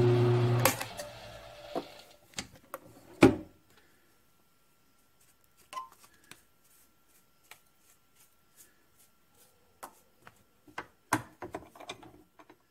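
Grizzly G1007 mill-drill motor running, then switched off under a second in and spinning down. After that, scattered light clicks and taps, with one sharp knock about three seconds in, as metal chips are brushed off the vise and the part.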